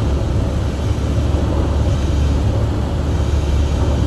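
Light airplane in a forward slip on final approach: a steady low rumble of engine and rushing air over the airframe, with no break or change.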